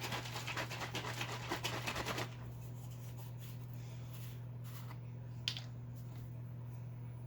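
A bottle of Brite Boy metal polish being shaken rapidly, a fast rattle that stops about two seconds in. A single sharp click follows a few seconds later.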